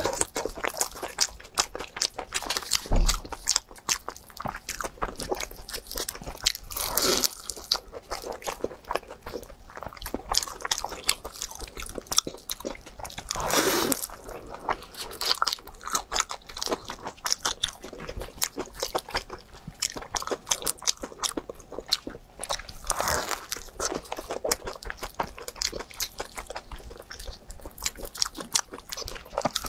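Close-miked eating of a flaky, crisp pastry crust filled with black sticky rice. The crust crackles as it is torn and bitten, with steady crunching and wet chewing, and several louder crunches spaced through.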